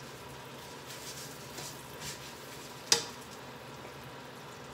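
Dry spaghetti sizzling quietly as it browns in butter in a skillet, stirred with metal tongs. About three seconds in comes one sharp metal clack of the tongs against the pan.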